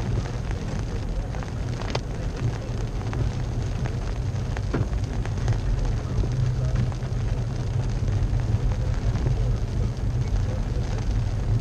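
Toyota Tacoma pickup driving along a wet gravel road, heard inside the cab: a steady low rumble of engine and tyres with a few light ticks.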